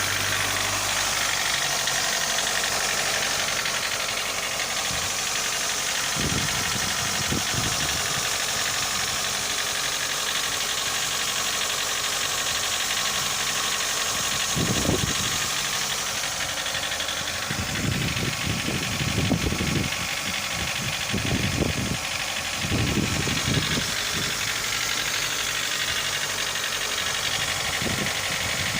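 Mitsubishi Lancer IX 1.6-litre four-cylinder petrol engine idling steadily, now warm, with the knock that the owner hears only when it is hot. A few brief low rumbles come and go through the second half.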